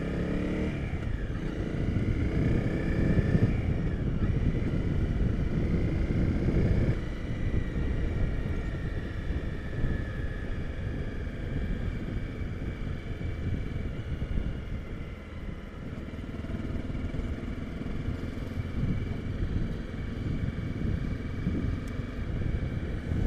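Honda CRF250 Rally's single-cylinder engine running as the motorcycle rides along a sealed road, under a heavy, fluctuating low rush of wind and road noise.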